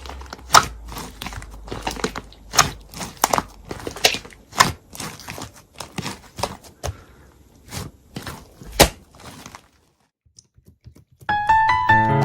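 Slime being squeezed and stretched by hand, giving irregular sharp clicks, crackles and pops as air pockets burst. The clicking stops about ten seconds in, and light piano music starts near the end.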